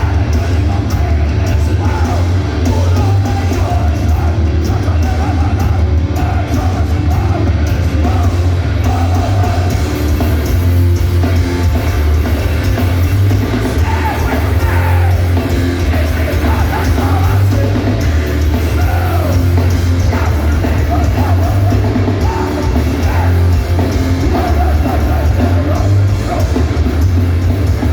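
A hardcore punk band playing live through a loud PA, with distorted guitars, heavy bass and drums and a shouted vocal, recorded from within the crowd.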